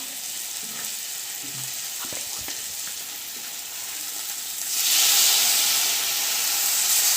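Onion, capsicum and tomato masala frying in oil in a pan, sizzling steadily with a few light stirring knocks; about five seconds in the sizzle jumps much louder.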